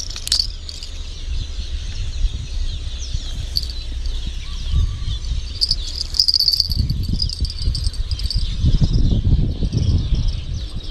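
Insects chirring steadily in a high, even drone, over a low rumble on the microphone that strengthens from about halfway through.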